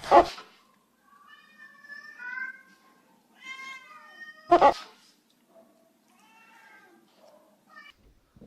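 Domestic cat meowing several times in short, bending calls, broken by two sudden loud thumps: one right at the start and one about four and a half seconds in.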